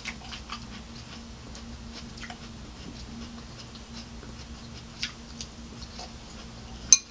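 Close-miked eating: soft crunches and small mouth clicks from chewing lettuce salad, with light taps of a metal fork in a glass salad bowl. A sharp click comes near the end, over a faint steady hum.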